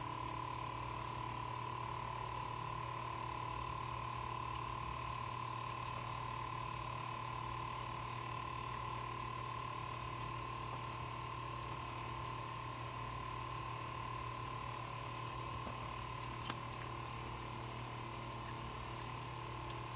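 Electric fan running steadily: a constant motor hum with a high, even whine, and one short click near the end.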